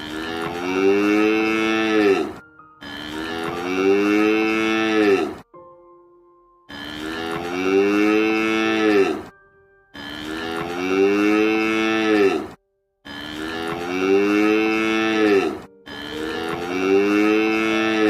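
A cow mooing: six long moos in a row, each holding its pitch and then dropping at the end. All six are the same call repeated.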